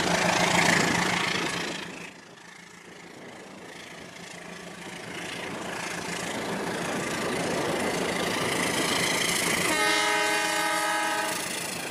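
Toy trains running on plastic track: a rumble and rattle of motor and wheels, loud at first as one train passes and goes away, then slowly growing as another comes in. A train horn sounds once for about a second and a half near the end.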